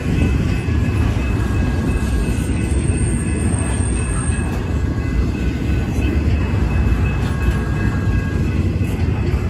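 BNSF freight train rolling past: a steady, loud rumble of railcars on the rails, with a few faint high steady tones from the wheels over it.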